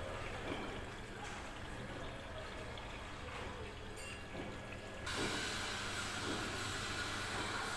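Samsung Ecobubble washing machine running with water, a steady low hum and watery hiss that grows louder about five seconds in.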